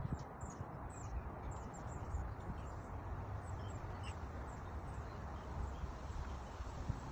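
Birds chirping in the background, short high calls now and then, over a steady low rumble.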